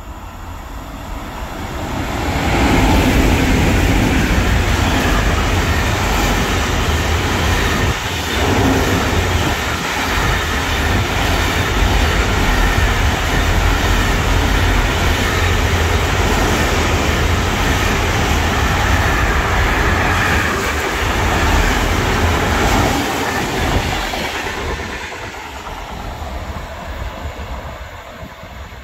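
Intermodal container freight train hauled by two E189 electric locomotives passing close by on the near track. The noise of the wheels and wagons builds over the first few seconds, stays loud and steady for about twenty seconds as the container wagons go by, then fades as the train moves away.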